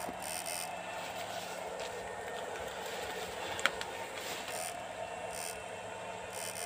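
Steady electrical hum of an electric fishing (electroshock) rig while its electrode pole is worked through a weedy ditch, with one sharp tick about three and a half seconds in.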